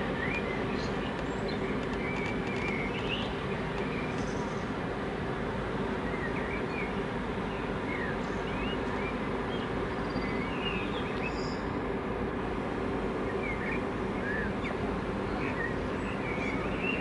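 Steady low rumble with a faint hum from the passing cruise liner Queen Mary 2, with small birds chirping briefly and repeatedly over it.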